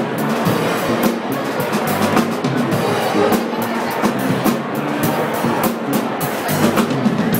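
Live jazz-funk band playing: a drum kit with busy cymbal and snare strokes drives a repeating electric bass line, with keyboard.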